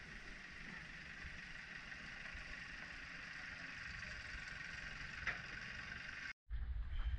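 Small diesel locomotive of the Taipingshan Bong-Bong narrow-gauge train creeping along the track, a faint steady running noise that grows slightly louder as it approaches. Near the end it cuts off abruptly and gives way to wind rumbling on the microphone.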